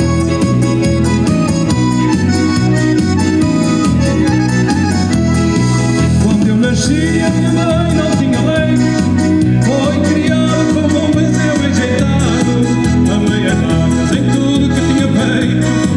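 A band playing music with a steady, even bass beat.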